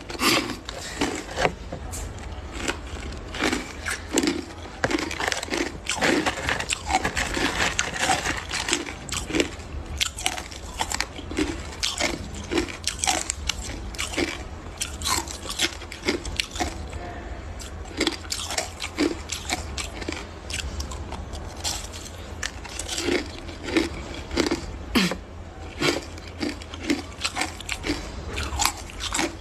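A person biting and chewing hard crushed ice close to the microphone: rapid, sharp crunches, one after another, with no let-up.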